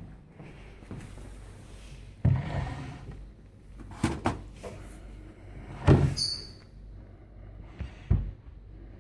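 A door being opened and shut, with several knocks and bangs spread over the seconds and a brief high squeak about six seconds in.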